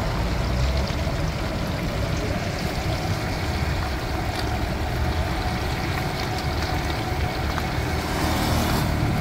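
Chicken pieces deep-frying in a large wok of oil, sizzling and bubbling steadily, over a low rumble.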